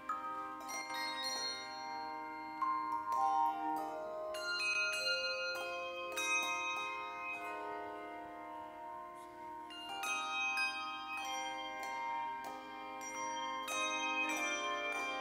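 Handbell choir playing: chords of bells struck together and left ringing, with fresh strikes every second or so.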